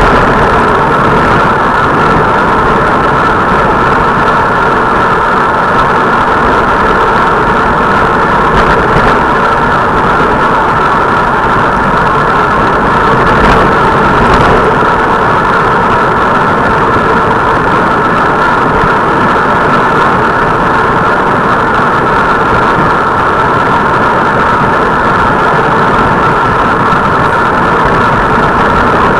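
Steady, loud road noise of travel, unchanging throughout.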